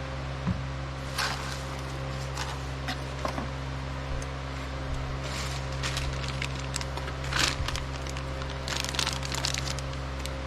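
Steady electrical hum in the shop, with scattered light clicks, taps and rustling as motorcycle parts are handled, a little busier about two thirds of the way in.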